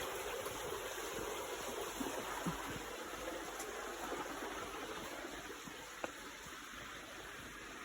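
Steady rush of running mountain-stream water at a waterfall, easing a little toward the end, with one short click about six seconds in.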